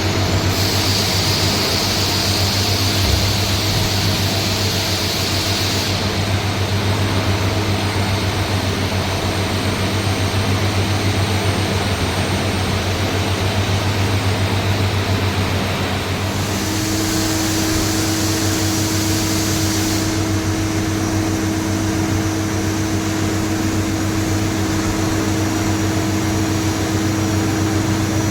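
CNC machining centre running, with a steady low hum and several steady tones. A higher hiss comes in for the first few seconds and again briefly after the middle, and a steady mid-pitched whine grows stronger partway through.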